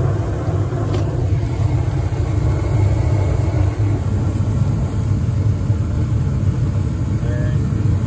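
Bryant gas furnace firing, its burners lit after a new igniter: a steady low rumble of the burner flames and draft inducer. A faint click comes about a second in.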